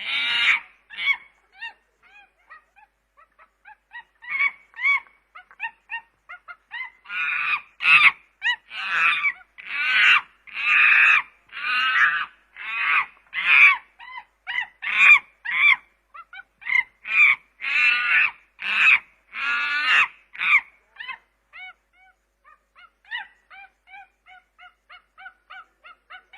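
Chimpanzee calling: short soft hoots build into a long run of loud, harsh screaming calls about one a second, which then die back to quick softer calls near the end.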